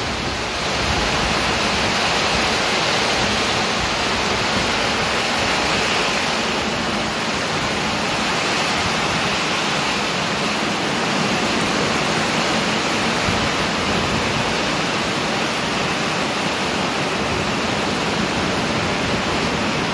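Heavy downpour: dense rain pouring steadily onto flooded paving stones, an unbroken hiss.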